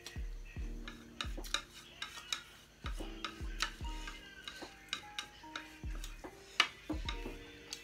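Wooden chopsticks clicking and scraping against a plate as noodles are stirred and gathered, in many short taps with a sharper click near the end. Soft background music runs underneath.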